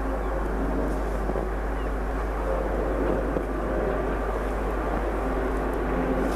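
BDZ class 43 electric locomotive hauling a freight train as it approaches: a steady running noise of the train with faint, even hum tones.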